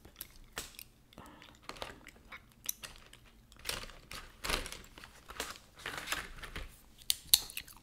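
Close-miked chewing gum: irregular wet clicks, smacks and crackles of gum being chewed, with a sharper snap near the end.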